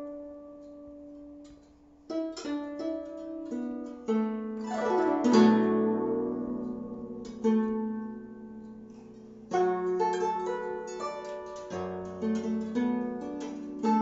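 Guzheng played solo: single plucked notes ring out and fade, then a quick glissando sweeps across the strings about four to five seconds in, followed by more plucked notes. A brief hush comes about a second in, before the playing resumes.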